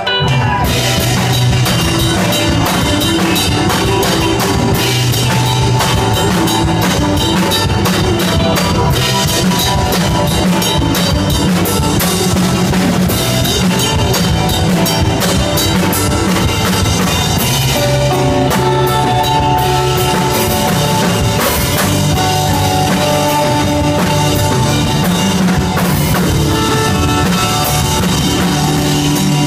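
Instrumental post-rock band playing live: layered electric guitars, bass guitar and drum kit. The drums and full band come in right at the start after a quieter guitar passage, then play on loud and dense.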